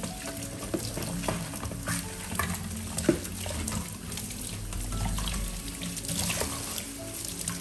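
Dishes being washed by hand at a kitchen sink: running tap water with scattered clinks and knocks of dishes.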